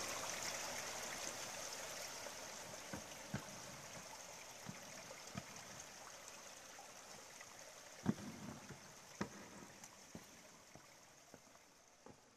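Small stream cascading over rocks: a faint, steady rush of water that slowly fades out, with a few soft knocks scattered through it.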